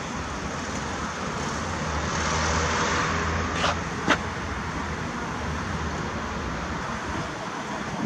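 City street traffic: a steady hum of cars, with one vehicle's engine and tyres swelling as it passes about two to four seconds in. Two sharp clicks come close together near the middle.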